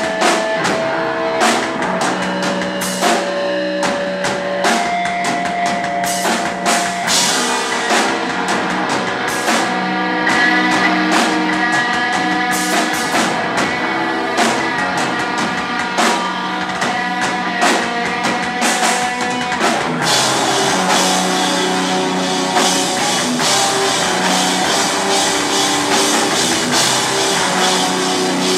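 Live hardcore punk band playing: distorted electric guitars, bass and a drum kit pounding out a song, with the music shifting into a denser, busier section about twenty seconds in.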